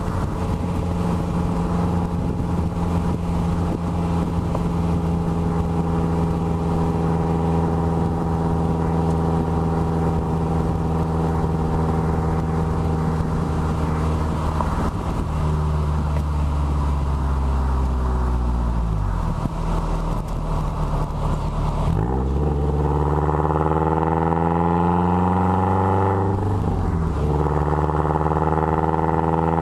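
Exhaust of a 2013 Subaru WRX's turbocharged flat-four, fitted with Killer B equal-length headers and a Maddad turboback exhaust, recorded right at the tailpipes. It holds a steady cruising note for about fifteen seconds and then drops off. About 22 seconds in the revs climb hard twice, with a sudden drop between them as at a gear change, and fall away again near the end.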